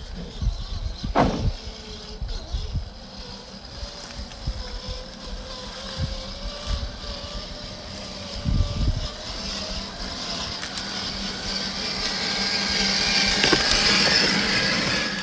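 Axial SCX10 III Gladiator RC crawler's electric motor and gear drivetrain whining as it crawls over terrain, with a few knocks in the first half and the whine growing louder over the last few seconds.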